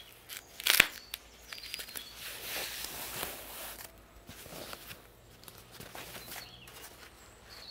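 White packing paper rustling and crinkling as it is unrolled from a carbon bicycle seatpost, with one sharp click a little under a second in. The rustling is loudest between about one and a half and four seconds in, then goes on more softly.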